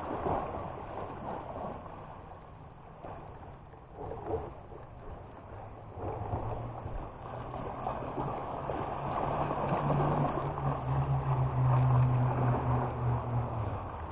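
Sea waves washing on the shore in surging swells. From about six seconds in, a steady low motor hum joins them and grows louder toward the end.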